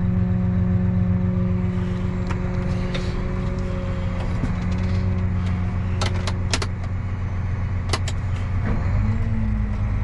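John Deere tractor's diesel engine running steadily at low revs, heard from inside the cab, its pitch rising slightly near the end as the tractor is put into forward gear. A few sharp clicks from the cab controls in the second half.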